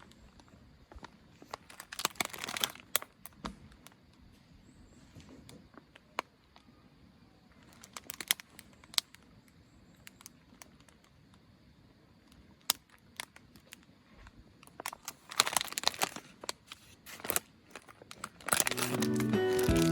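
Intermittent crinkling and rustling of handled material in short bursts, with a few sharp clicks in between; music comes in near the end.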